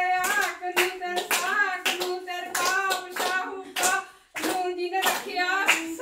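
Group of women clapping in a steady beat, about two claps a second, while singing together. The singing breaks off briefly about four seconds in.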